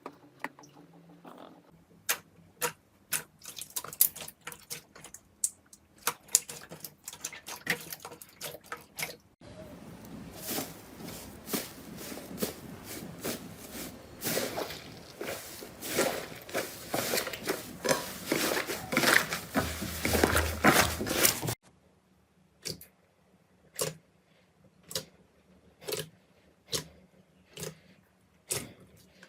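Slime being squeezed and pressed by hand, making sharp wet clicks and pops. A denser crackling stretch runs through the middle, and near the end the pops come singly, about one a second.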